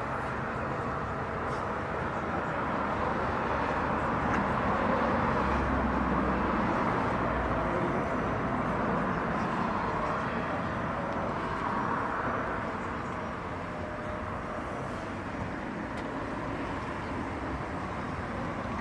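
Steady outdoor background noise with a low vehicle rumble, without distinct events.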